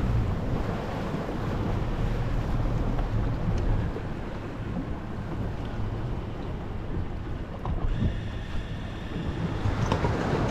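Center-console fishing boat running across the water: a low engine drone under the rush of water and wind noise on the microphone. A faint high whine comes in near the end.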